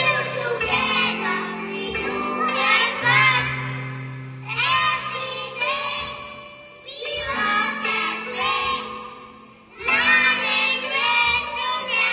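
A group of young children singing a song together over a band accompaniment with sustained bass notes, in phrases separated by short dips, the longest about nine seconds in.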